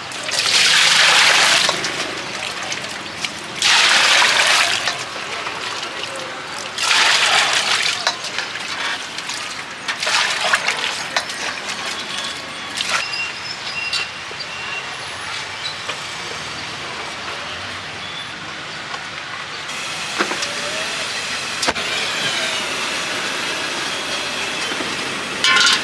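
Stir-frying in a wok over a high gas flame: three loud hissing bursts of about a second each in the first eight seconds, then a steadier sizzle with a few sharp clanks of the metal spatula against the wok.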